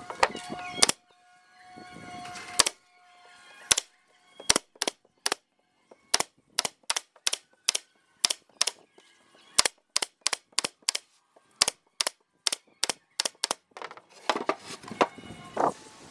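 Pneumatic nail gun firing nails through a plywood lid into a pine box frame: about two dozen sharp shots, irregularly spaced and often in quick runs of several a second, stopping near the end.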